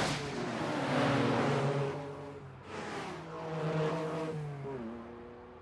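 Ferrari Testarossa flat-12 engine accelerating hard: the pitch climbs, drops at a gear change about two and a half seconds in, climbs again, then falls away as the sound fades near the end.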